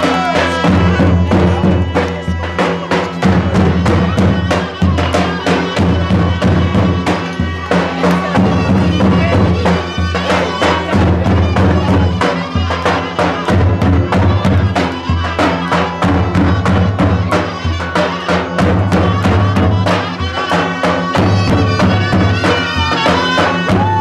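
Traditional Albanian folk music: large double-headed folk drums beaten in a fast, steady rhythm, with a held melody line over a heavy bass.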